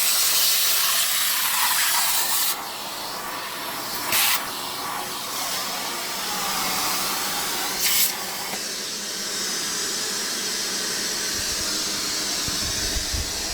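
Vacuum cleaner running with a steady airy hiss. It drops in level about two and a half seconds in, with two brief louder rushes of air around four and eight seconds in.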